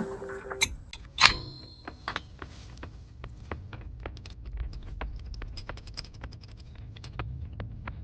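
Metal tools and brake parts being handled: a loud metallic clink with a brief ring about a second in, then a run of light, irregular clicks and taps.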